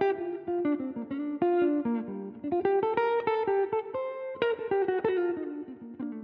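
Background music: a plucked-string melody, guitar-like, with quick notes moving up and down.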